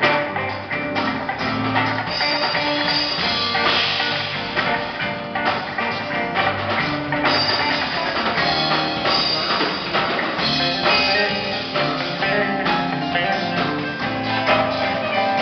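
A rock band playing live, with guitar and drum kit, during a soundcheck run-through.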